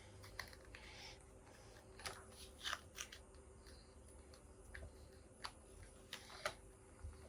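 Faint, scattered plastic clicks and light handling noise from a plastic action figure as its jointed parts are moved, over a low steady hum.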